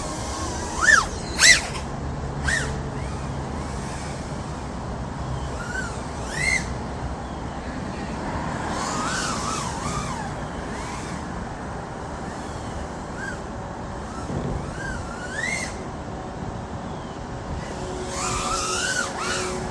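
Micro FPV quadcopter's brushless motors (1003-size, 14,000 KV, on 2-inch props) whining in flight, the pitch sweeping up and down with throttle. The loudest punches come about a second in, with more rising-and-falling whines through the rest and a longer swell near the end.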